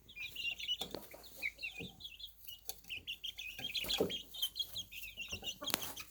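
Baby chicks peeping, many short high peeps overlapping in a steady chatter, with a few lower soft clucks mixed in. A sharp click near the end.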